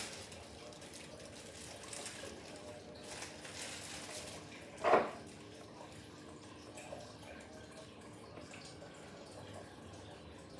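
Faint water dripping and trickling, with one short, louder sound about halfway through.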